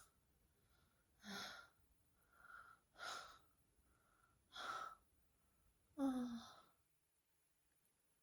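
A woman's breathing, faint: a run of audible breaths about every second or so, some fuller than others, ending about six seconds in with a longer, voiced sigh.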